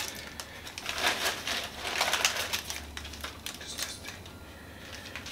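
Small plastic packaging rustling and crinkling in the hands, with irregular light clicks. It is busiest in the first half and quieter toward the end.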